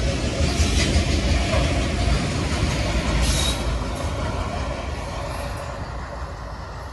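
CN freight train's cars rolling past, a steady rumble and rattle of wheels on rail with a brief high wheel squeal a little over three seconds in, fading toward the end.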